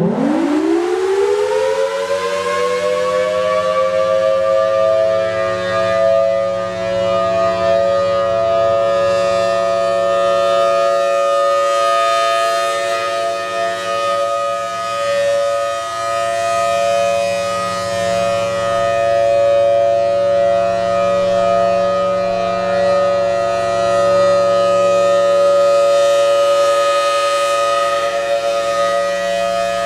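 Federal Signal Thunderbolt 1000T outdoor warning siren starting up. Its pitch rises quickly and levels off within about five seconds, then it holds a steady two-tone chord: the one-minute steady alert signal of a routine siren test.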